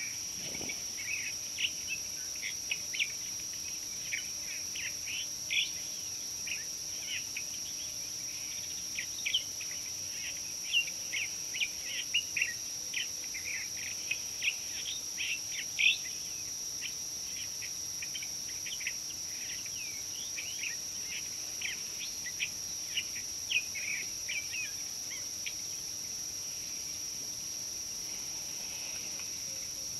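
Birds calling in quick runs of short chirps over a steady, high-pitched insect drone. The chirping stops near the end, leaving the insect drone alone.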